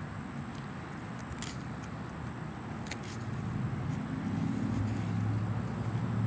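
Quiet outdoor background with a steady high-pitched whine and a few faint clicks. A low engine-like hum grows louder over the last two seconds or so.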